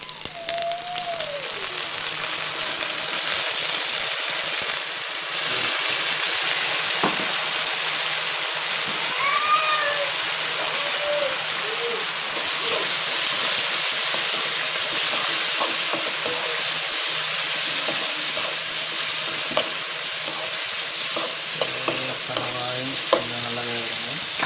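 Squid and sliced onion sizzling in hot oil in a wok, a dense steady hiss that gets louder a few seconds in as the squid goes in. Occasional light clicks of stirring near the end.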